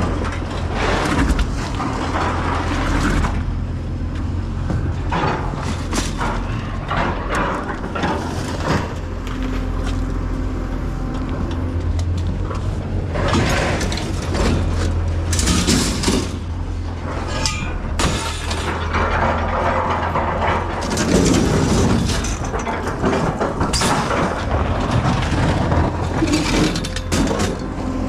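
Chain-link fence and its steel rails rattling, clanking and scraping against a steel diamond-plate truck deck as they are handled, in irregular bursts of metal noise. Under it runs the steady low rumble of an engine.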